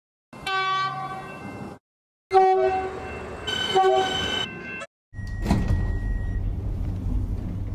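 Two train horns in turn: an X'trapolis 100 horn sounds for about a second and a half, then after a brief gap a Siemens Nexas horn sounds for about two and a half seconds, its tones shifting partway through. From about five seconds in, a low rumble with a steady high beep lasting about a second, the X'trapolis 100 door open/close chime.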